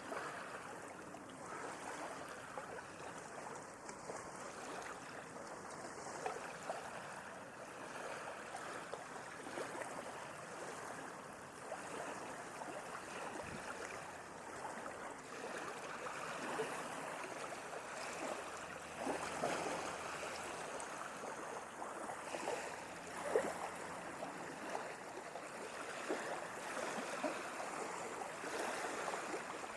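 Sea waves washing and lapping: a continuous rush of water with many small scattered splashes, slightly louder in the second half.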